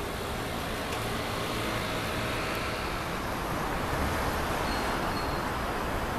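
Steady road traffic noise on a city street with a streetcar line, the hum of cars getting somewhat louder about halfway through as traffic moves past.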